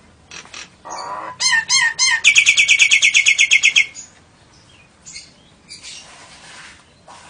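Songbird calls: a harsh note about a second in, then three looping whistles and a fast trill of repeated notes lasting about a second and a half.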